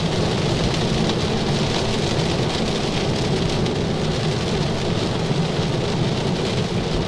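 Rain falling on a moving car with wet-road tyre noise, heard steadily from inside the cabin of an electric Tesla Model 3.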